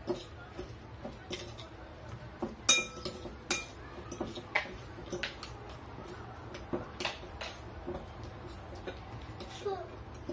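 A metal fork and spoon clinking and scraping against a glass mixing bowl as a sticky mash of banana and ground rolled oats is stirred. The clinks are irregular and sharp, some with a brief ringing.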